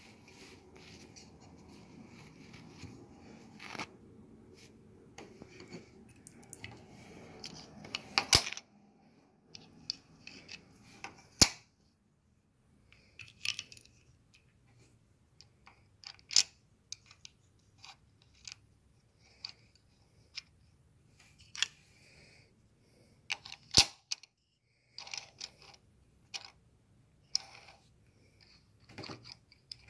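Plastic LEGO pieces being handled: scattered sharp clicks and taps as bricks and plates are pressed together and set down on a wooden table. For the first several seconds a hand rubs close to the microphone.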